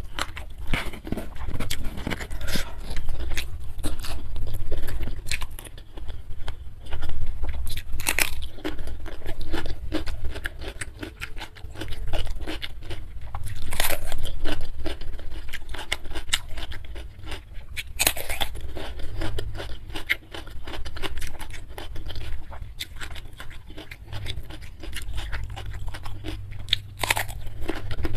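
Close-miked eating sounds: fingers working rice and sambal, wet chewing, and crunchy bites of raw cucumber, with many sharp mouth clicks and a few louder crunches.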